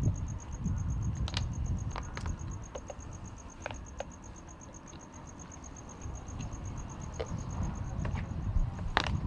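Outdoor background ambience: a low rumble with a faint, high, rapidly pulsing tone throughout and a few scattered small clicks, the loudest near the end.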